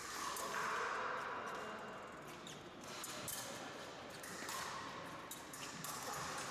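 Fencing-hall background: scattered clicks and knocks from footsteps and blades on the surrounding pistes, over a steady hall noise.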